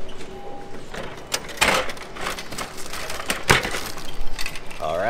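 Snack vending machine dispensing: a few sharp knocks and clunks as the packaged waffle drops into the delivery bin and the plastic retrieval flap is pushed open, two of them louder than the rest.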